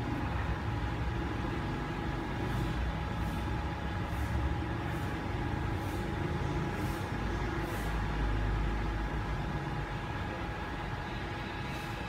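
Electric blower running steadily: an even whir over a low rumble, with a constant whine on top.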